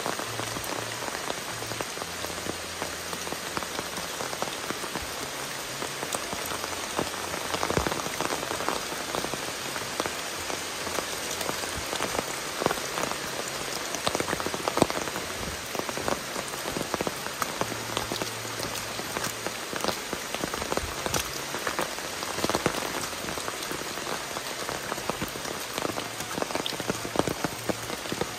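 Steady rain falling on leaves and a muddy forest path, with many individual raindrops ticking sharply close by.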